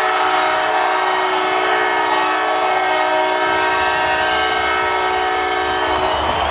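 Hockey arena's air horn, a chord of several steady tones held for several seconds, then cut off near the end.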